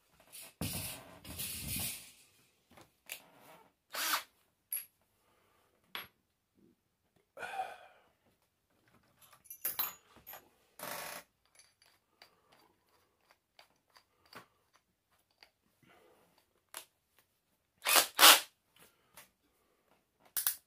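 Handling noises from tools and an aluminum strip: scattered clicks, knocks and rustling, with two loud sharp knocks about eighteen seconds in. No drill motor is running.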